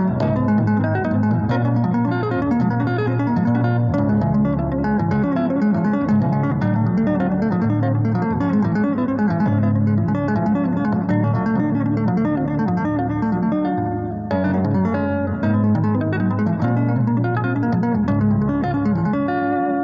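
Electric guitar played with two-handed tapping on the fretboard: a continuous flow of tapped notes in a minor key, low bass notes moving under higher melody notes, with a brief thinning about fourteen seconds in.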